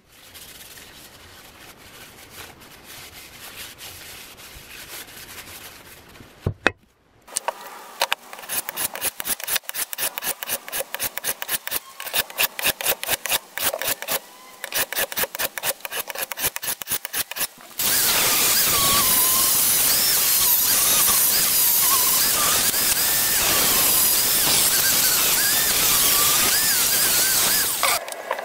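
Soft rubbing of a towel wiping a steel cleaver blade. Then the blade is stroked back and forth on a sharpening stone in an even rhythm of a few strokes a second. In the last third, a power tool runs loudly and steadily with a wavering whine as it works the blade.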